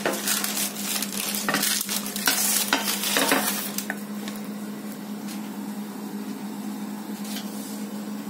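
Baked pizza being moved off baking paper onto a plate: paper rustling with several light knocks and scrapes during the first four seconds, then only a steady low hum.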